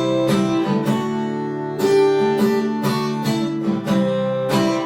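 Acoustic guitar strumming chords, a stroke roughly every half second to second, with the chords ringing on between strokes.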